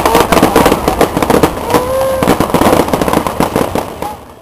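Aerial fireworks crackling: a dense run of rapid cracks and pops that dies away near the end.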